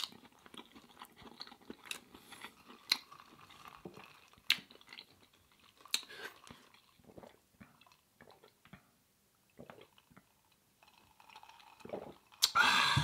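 Close-miked chewing of curry-soaked bread: soft wet mouth clicks and smacks with a few sharper clicks, quieter toward the middle. A louder noisy burst comes just before the end.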